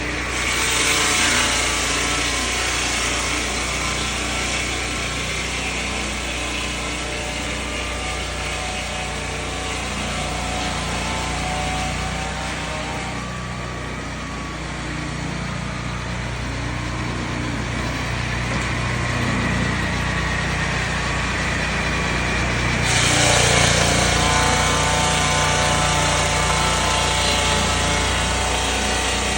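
Turbosawmill engine running under load while the saw cuts through timber, a steady engine note under a bright cutting hiss. The cutting hiss eases off a little before halfway and comes back strongly about three quarters of the way through.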